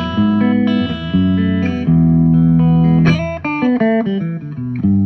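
Electric guitar played with a clean, unaffected tone: ringing held chords, then a quicker run of single notes from about three seconds in.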